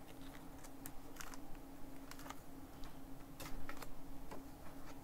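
Trading cards being handled and flicked through: a string of light, irregular clicks and taps as the cards slide and knock against one another, over a faint steady hum.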